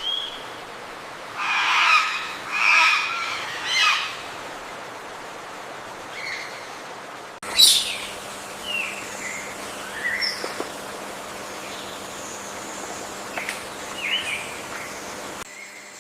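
Forest birds calling: three loud, harsh calls close together near the start, then scattered short chirps and whistles, one of them a quick rising sweep.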